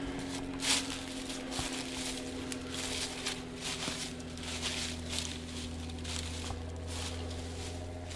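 Footsteps crunching through dry fallen leaves at a steady walking pace, with a steady low hum underneath.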